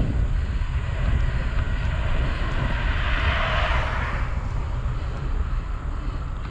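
Wind buffeting the microphone of a moving bicycle as a steady low rumble, with a rushing hiss that swells about three seconds in and fades a second later.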